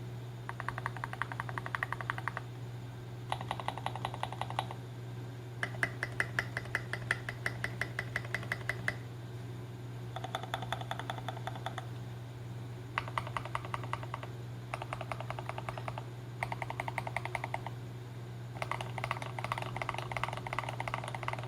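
Typing on a mechanical keyboard in a Tofu HHKB-layout case with SA-profile keycaps. The typing comes in fast bursts of a second or three of rapid keystrokes, with brief pauses between bursts.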